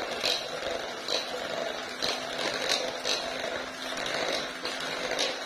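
Electric hand mixer running steadily, its wire beaters whipping a creamed butter, margarine and sugar cookie batter in a bowl, with scattered light clicks.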